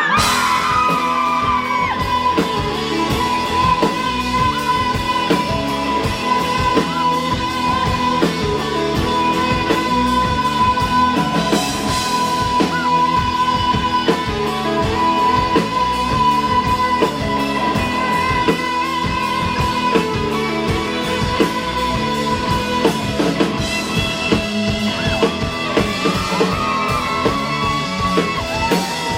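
Live rock band playing loudly, with drum kit and electric guitars; one high note is held steadily for about twenty seconds before the texture shifts.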